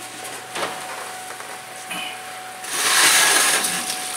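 Oven door pulled open with a click about half a second in, then a loud hiss of the baked chicken and its pan drippings sizzling on the hot sheet pan from a little past the middle.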